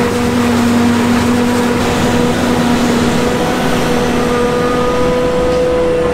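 Tractor engine and a Claas Jaguar 970 forage harvester running steadily while the harvester chops maize into the trailer alongside: a loud, even machinery drone with a constant hum, the lower hum fading out about two-thirds of the way through.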